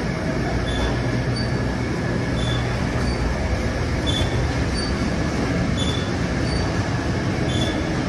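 A commercial dishwashing machine running: a steady wash-and-motor noise with a low hum, and faint short high chirps recurring about every second and a half.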